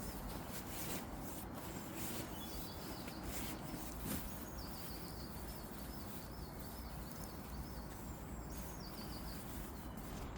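A small songbird singing a run of quick repeated chirping notes, mostly in the middle stretch, with a shorter phrase near the start and another near the end. Underneath are a steady outdoor background hiss and a few faint clicks or taps.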